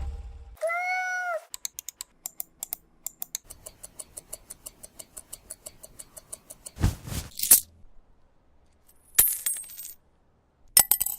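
A string of separate sound effects: a short pitched chirp that rises and falls, then a long run of rapid sharp clicks, several a second, like small metal pieces or coins clicking. Short noisy bursts and knocks follow near the end.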